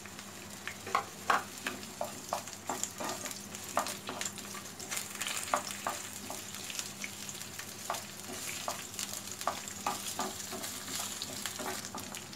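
Chopped onion sizzling as it fries in hot oil in a frying pan, with a steady hiss. A wooden spatula stirs the pieces, knocking and scraping against the pan in frequent, irregular taps.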